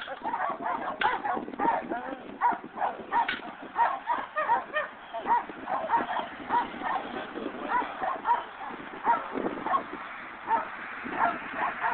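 A dog barking over and over, short barks about two a second.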